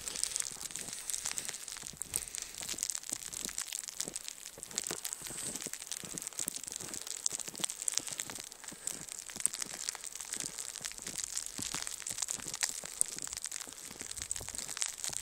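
Footsteps crunching in fresh snow, a person walking at a steady pace of about two steps a second.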